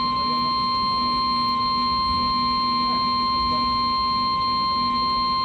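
NOAA Weather Radio warning alarm tone: a single steady, high-pitched beep held at an even level, slightly distorted. It is the alert that comes before a new severe weather warning is read.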